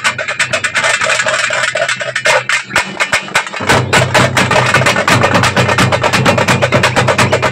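A troupe of thappu (parai) frame drums beaten with sticks in a fast, driving rhythm. The beat thins briefly about three seconds in, then comes back louder and fuller.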